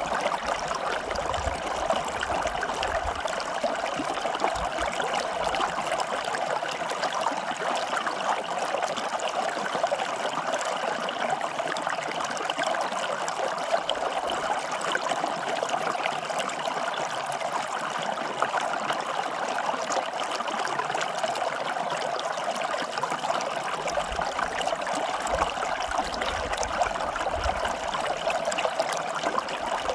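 Water flowing steadily, like a stream or small cascade, with an even rushing and trickling sound. There are occasional low rumbles near the start and near the end.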